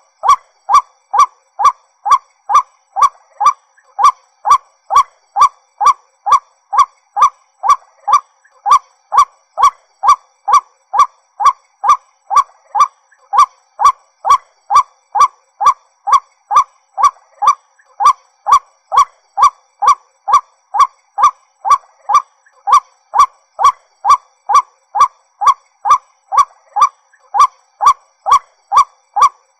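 White-breasted waterhen calling: one short note repeated evenly and monotonously, about two a second.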